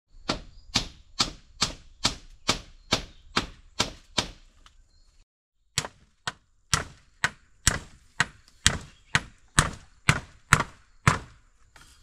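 Repeated chopping blows, about two a second, in two runs separated by a pause of a second or so.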